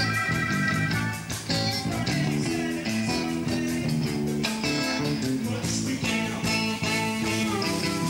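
Live blues band playing, with guitar to the fore over a steady beat.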